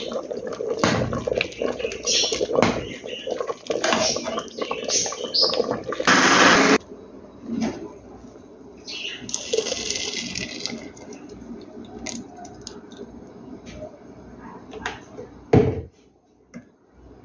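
A metal spoon scrapes and clinks in a pot of cooked hominy. Then a blended peanut-and-milk mixture is poured into the pot in two rushes of liquid, about 6 s in and again from about 9 to 11 s. There is a single sharp knock near the end.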